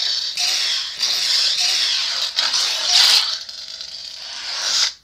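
Proffieboard lightsaber playing Kyberphonic's 'AM' unstable-blade sound font through its small 22 mm speaker: a crackling, hissing hum broken by clash hits about a second in and again around two and a half and three seconds. Near the end the sound swells, then cuts off suddenly as the blade shuts off.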